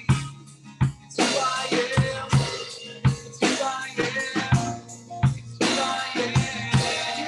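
Live worship song from a small band: acoustic guitar strummed, a drum kit keeping the beat with bass drum and snare hits, and a man and a woman singing.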